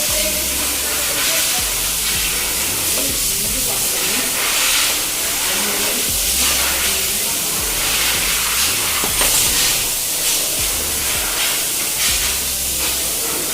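A steady hiss over a low hum, running without a break.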